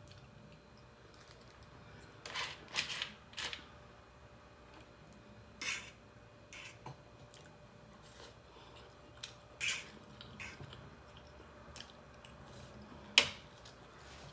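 Eating noises from a Dungeness crab meal: a few short, scattered crunches and slurps of shell and meat, with one sharp snap about thirteen seconds in.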